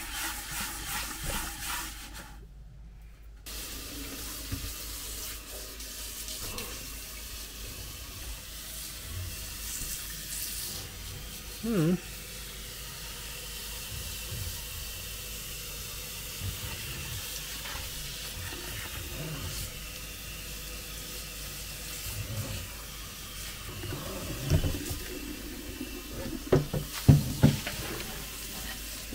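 Wet scrubbing of a solid aluminum cooking pot with a sponge, a steady watery rubbing, with a few sharp knocks of the pot near the end.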